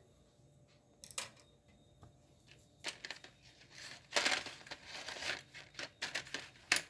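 Handling noise: rustling and crinkling with a few short clicks and knocks, loudest in a stretch of rustling about four seconds in that lasts over a second.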